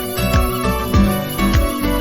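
Background music with plucked, guitar-like notes at an even pace.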